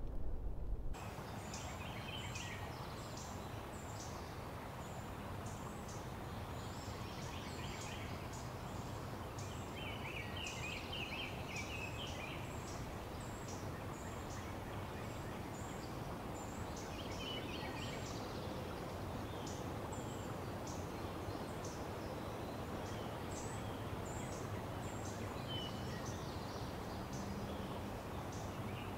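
A bird chorus: many short, high calls repeated rapidly in bursts over a steady outdoor background hiss.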